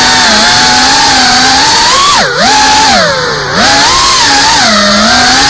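FPV quadcopter's electric motors and propellers whining in flight. The pitch and level drop sharply twice, about two seconds in and again just after three seconds, then climb back.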